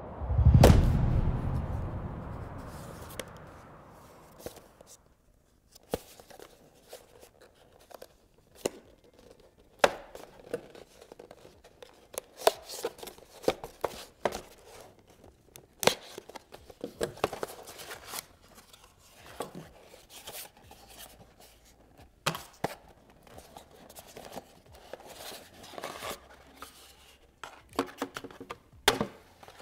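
A deep boom about a second in that dies away over about four seconds, then a small cardboard watch box being opened by hand: irregular sharp taps, clicks and cardboard scrapes as the seal is cut with a folding knife and the flaps are worked open, with plastic wrapping rustling near the end.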